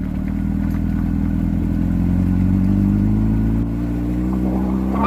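Motorcycle engine running steadily as the bike rolls slowly along the street. The note dips slightly a little past three and a half seconds in.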